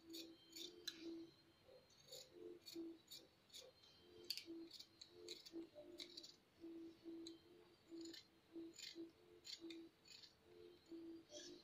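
Large tailor's scissors cutting through blouse fabric: a steady run of faint, crisp snips, about two a second.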